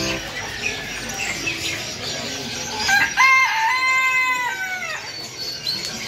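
Rooster crowing once, a single call about two seconds long starting about three seconds in, over a background of many small caged birds chirping.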